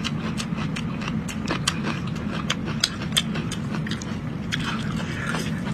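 Close-miked eating sounds: a person chewing, with many sharp wet mouth clicks a few times a second over a steady low hum.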